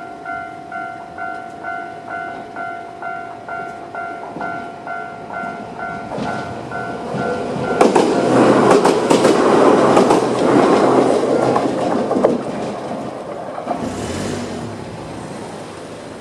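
Japanese level-crossing alarm bell ringing in a steady electronic ding-ding about twice a second. About six seconds in, a Toyama Chiho Railway 17480-series electric train passes over the crossing, loud with a rapid run of wheel clicks over the rail joints, then fades.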